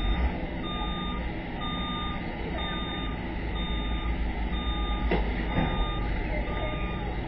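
Box truck's reversing alarm beeping about once a second over a low, steady engine rumble, with two short knocks about five seconds in.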